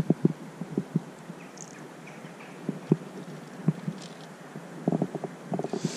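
River water sloshing and lapping around a wading angler's legs, with irregular soft splashes and some wind on the microphone.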